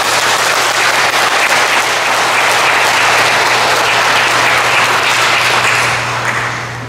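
A congregation applauding steadily; the clapping dies away near the end.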